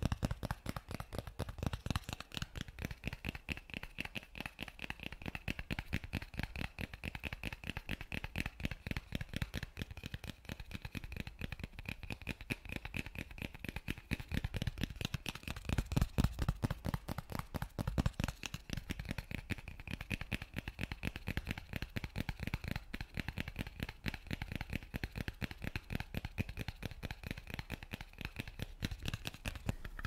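Hands and fingers working a small object right against the microphone, making a fast, unbroken patter of close clicks and rustles, many a second, a little louder about halfway through.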